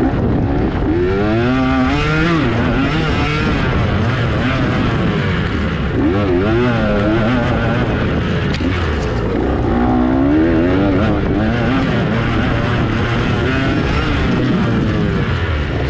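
Off-road dirt bike engines running hard, their pitch rising and falling quickly as the riders work the throttle, with several bikes overlapping.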